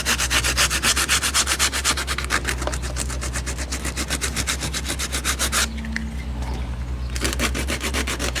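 Sandpaper rubbed back and forth by hand over cured Bondo body filler on a truck's body panel, knocking down the high spots, about six quick strokes a second. The strokes pause for about a second and a half near six seconds in, then start again.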